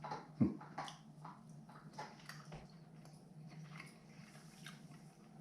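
A person chewing a bite of smoked chicken: scattered small crunching clicks, with one sharp knock about half a second in, over a steady low hum.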